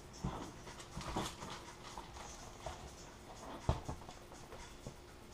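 Small hand-held laminating iron sliding and pressing over laminating film on a foam model-plane wing, giving scattered crackles and light taps. The loudest is one sharp tap a little after three and a half seconds in.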